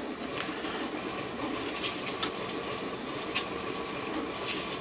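Small metal washers clicking as they are picked from a pile and dropped onto bolts: a few light, separate clicks, the sharpest about two seconds in, over a steady background hiss.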